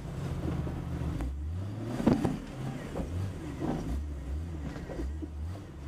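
A Jeep Cherokee's engine running at low revs, its pitch stepping up and down as it crawls along a rough dirt trail. Several knocks and bumps come from the vehicle going over the uneven ground, the loudest about two seconds in.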